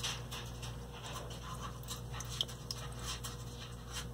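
Low steady hum of a turtle rock-waterfall filter running in the enclosure, with faint irregular drips and small ticks.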